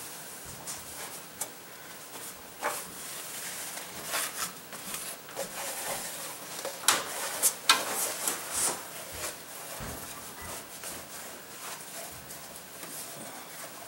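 A cloth towel wiping and rubbing over the bare engine block deck, in short scratchy strokes, with a few sharp clicks about seven to eight seconds in.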